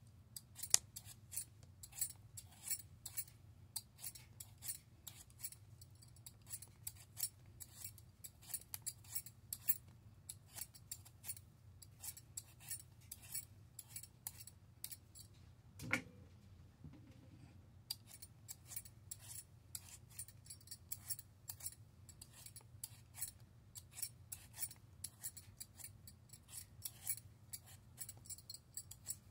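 Handheld metal vegetable peeler scraping the skin off a raw potato in quick repeated strokes, a few each second. About halfway through the strokes stop briefly after a single knock.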